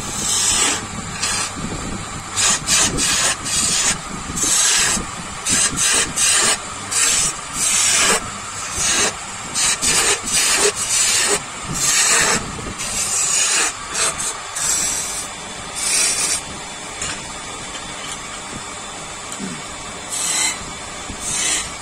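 Repeated short, irregular scraping strokes of a hand tool on a workpiece, like filing or sanding, over a steady background hum. The strokes come thickly for the first two-thirds, then only now and then near the end.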